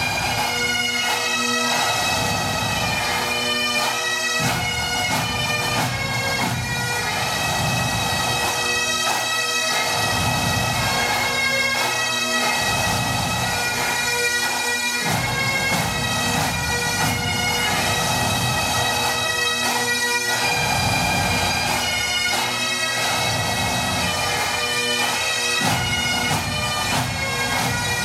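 Pipe band playing: Great Highland bagpipes carry a tune over their steady drones.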